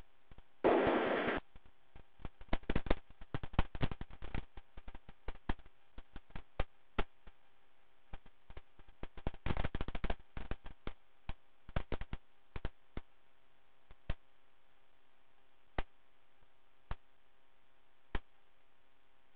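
Aircraft radio/intercom audio feed between transmissions: irregular crackling clicks and pops of static over a steady low hiss and hum, with a short burst of static about a second in and another cluster of crackles near ten seconds.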